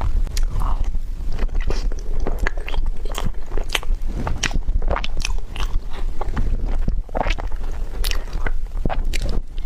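Close-miked chewing and biting of a tiger skin roll: a dense run of irregular mouth clicks and smacks.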